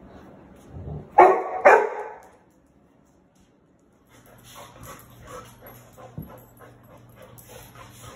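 A Labrador retriever barks twice in quick succession, loud and sharp, during rough play-wrestling. After a short lull, softer scuffling play noises follow over a low steady hum.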